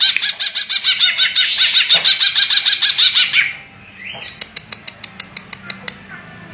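Cucak ijo (greater green leafbird) singing a fast, loud run of repeated chirping notes, about eight a second, that stops about three and a half seconds in. A quieter series of sharp ticking clicks follows.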